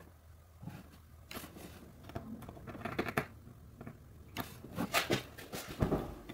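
Handling noise from a hot-staple plastic repair gun worked against a cracked snowmobile hood: irregular light clicks and taps, a few louder ones in the second half.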